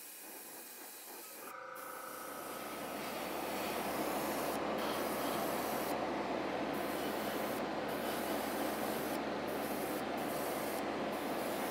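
Iwata Eclipse HP-CS gravity-feed dual-action airbrush spraying olive green paint: a steady hiss of air with a low motor hum underneath, growing louder over the first few seconds and then holding steady.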